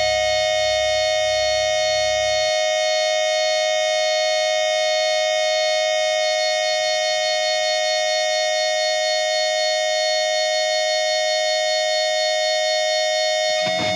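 Electric guitar feedback from an amplifier: one loud, steady high tone with a stack of overtones, held without fading. A low bass rumble under it cuts off about two and a half seconds in.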